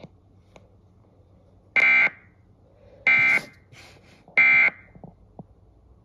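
Three short, screeching digital data bursts a little over a second apart: the SAME end-of-message code that closes a NOAA Weather Radio severe thunderstorm warning broadcast.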